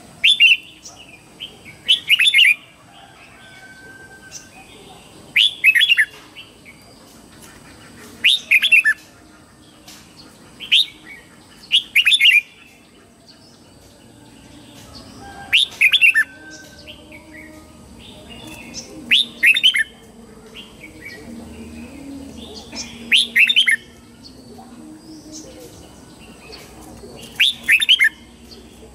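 Red-whiskered bulbul singing: short phrases of quick, sweeping notes, repeated about every three seconds with softer chirps between them.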